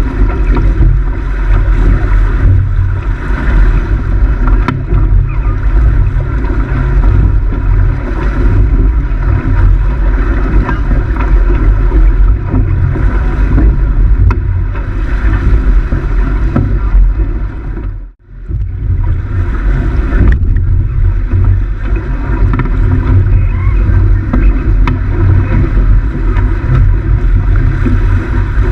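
Wind buffeting the microphone aboard a sailboat under way, a loud, low rumbling roar with the hiss of water under it. It cuts out for a moment about two-thirds of the way through, then carries on.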